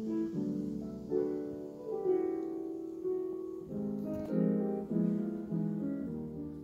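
Background music: solo piano playing a slow run of chords and notes, each struck and left to fade.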